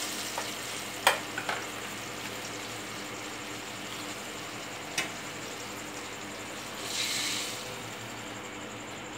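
Uncooked rice poured from a bowl into a pot of hot oil and masala, over a faint steady sizzle. There are sharp clinks about a second in and again near five seconds, and a brief hiss around seven seconds.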